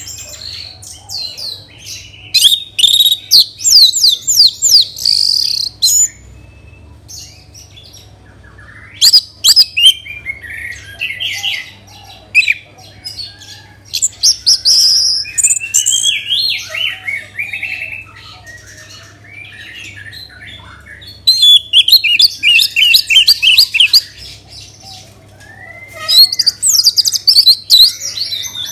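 Orange-headed thrush (anis merah) singing: loud bursts of rapid, varied whistled and chattering notes, each phrase a second to a few seconds long with short pauses between. A faint steady low hum lies underneath.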